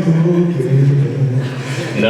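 Unaccompanied vocal group singing: a bass voice steps down through low notes under held backing harmony, with no lead lyric.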